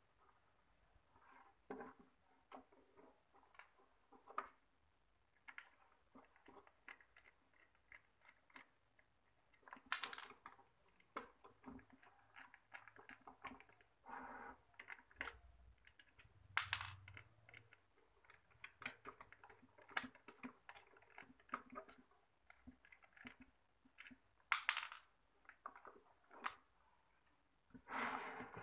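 Scattered clicks, taps and rustles of a subwoofer's amplifier circuit board and plastic jack panel being handled and moved about, with a few louder sharp scrapes or knocks about ten seconds in, around 17 and 25 seconds, and near the end.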